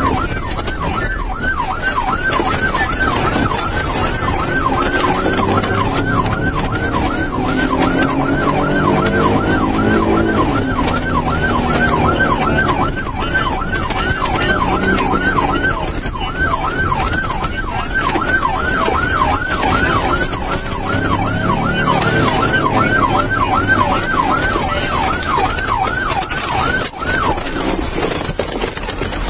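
Police car siren in yelp mode, a fast rising-and-falling wail of about three sweeps a second, sounding from the patrol car during a pursuit. Underneath it, the car's engine rises and falls in pitch as it accelerates and slows.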